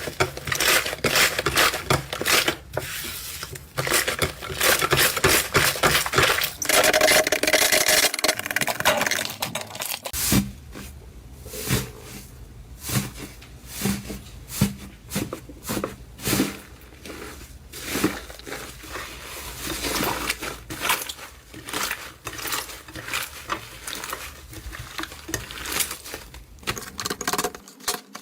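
Slime being played with, giving a dense run of crackling clicks for about the first ten seconds, then separate sharp pops and clicks spaced out through the rest.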